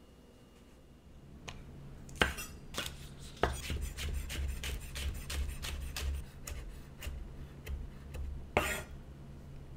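Chef's knife chopping green onion on a wooden cutting board: a few separate sharp knocks, then a quick even run of chops at about four a second, with a few louder strikes.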